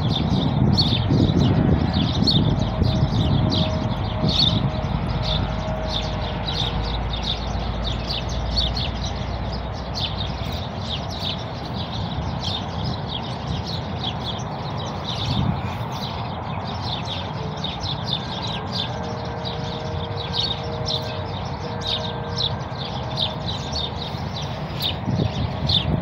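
A flock of birds chirping in a dense, unbroken chorus as they settle to roost for the night. A low rumble runs underneath, strongest in the first few seconds.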